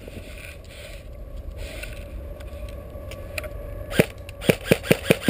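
Airsoft gun firing: a single sharp shot about four seconds in, then a quick string of shots at about five a second, over a steady low rumble.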